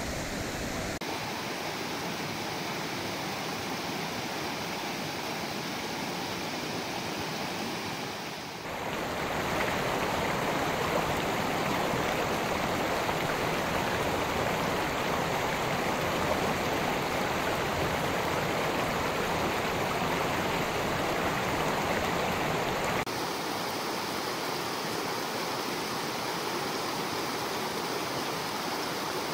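Mountain stream rushing, a steady wash of flowing water. It changes abruptly a few times and is loudest through the middle.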